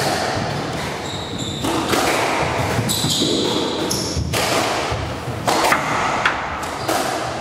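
Squash rally: the ball cracks off rackets and the court walls roughly every second, in a large, echoing court, with court shoes squeaking on the wooden floor.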